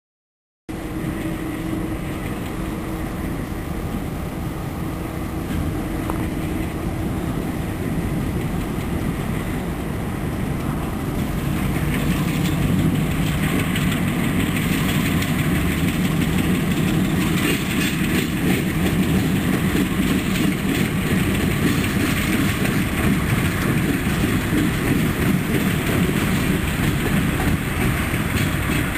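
Union Pacific diesel-electric freight locomotive running on the tracks, a steady engine rumble that cuts in just after a moment of silence and grows louder about twelve seconds in.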